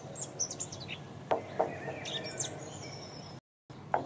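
Birds chirping in short, high, falling calls over a low steady hum, with a couple of faint ticks. The sound cuts out completely for a moment near the end.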